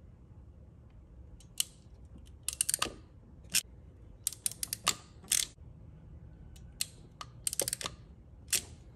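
Hand crimper crimping heat-shrink butt connectors onto wires: irregular clusters of sharp clicks and snaps from the tool's jaws and handles.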